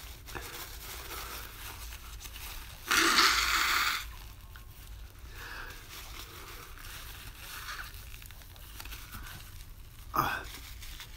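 A person blowing their nose hard into a paper napkin, one loud blast of about a second a few seconds in, then a shorter blow or snort near the end. The nose is running from eating very hot, spicy ramen noodles.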